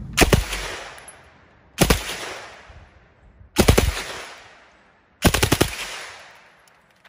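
A MAT-49 submachine gun rechambered to 7.62x25mm Tokarev firing full-auto: four short bursts of a few rounds each, about a second and a half apart. Each burst trails off in echo.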